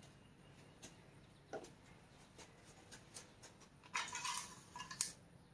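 Engine oil dipstick being drawn out of its tube and handled with a paper towel: a few faint clicks, then about a second of scraping and rustling near the end.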